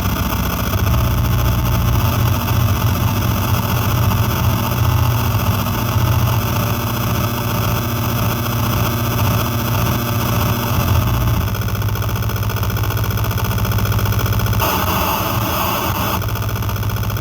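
Harsh electronic drone from an Error Instruments Data Synth: a thick low hum under dense, buzzy layered tones that sound like an engine running. The texture shifts abruptly about eleven seconds in and again near the end as the knobs are turned.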